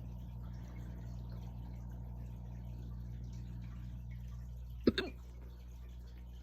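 A single loud hiccup about five seconds in, sudden and brief with a short second catch right after it. Beneath it runs a steady low hum.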